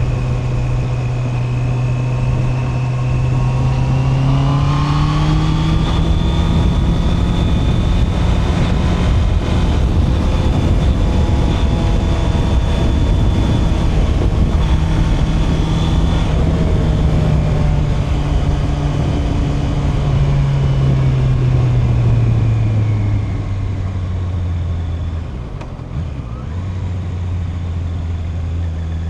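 Honda CB650R's inline-four engine running on the move. The revs climb about five seconds in, hold steady, then ease off from about sixteen seconds and drop lower near the end as the bike slows. Steady wind rumble on the microphone runs underneath.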